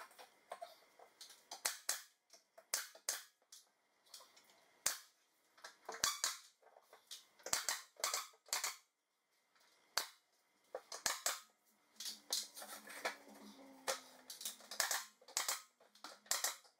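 Pneumatic brad nailer firing into wooden trim at the base of cabinets: many sharp pops in irregular clusters, sometimes several in quick succession.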